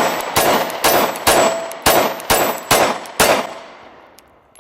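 9mm Glock 26 Gen 4 pistol firing a rapid string of about seven shots, roughly one every half second. Thin metallic ringing after the shots is typical of steel targets being hit.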